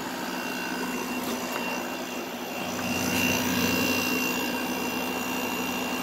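Kool King window air conditioner running out of its case, with the compressor on: a steady hum from the compressor and a whir from the fan, growing a little louder about halfway through.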